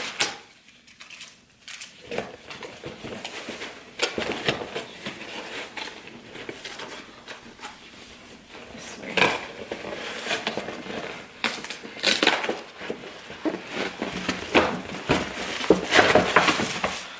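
Cardboard gift box and tissue paper being handled as clothes are unpacked: scattered rustling, crinkling and light clicks, with louder bursts of paper noise near the middle and near the end.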